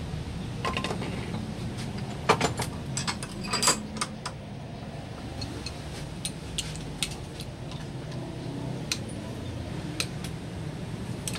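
Scattered sharp metallic clinks and taps, a few close together a couple of seconds in, over a steady low hum.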